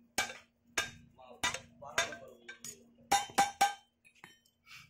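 Hand hammer striking a red-hot iron piece on a steel plate over the anvil as it is forged into a curled shape: about eight sharp, ringing metal-on-metal blows, roughly two a second, with three quicker blows just after three seconds in, after which the hammering stops.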